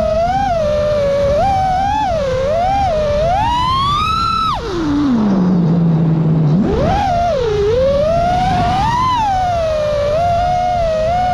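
FPV freestyle quad's brushless motors (Emax LS 2207 on 6S, Gemfan Hurricane props) whining, the pitch bending up and down with throttle. About four seconds in it climbs steeply on a punch-out, then drops suddenly to a low steady hum for about two seconds as the throttle is cut, and sweeps back up. Wind noise runs underneath.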